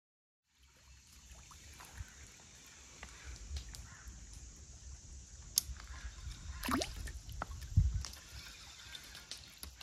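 Water sloshing and dripping in small splashes, with scattered sharp clicks over a steady low rumble, and a loud low thump about eight seconds in.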